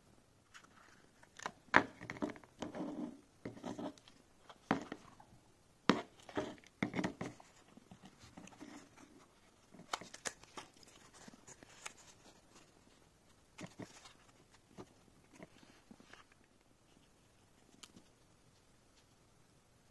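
Hands unpacking a small electronics board from a clear plastic case and foam insert: scattered clicks, scrapes and rustles, busiest and loudest in the first half, then fewer and fainter.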